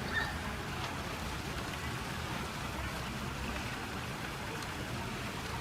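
Steady, even background noise with no distinct event, and a couple of faint clicks.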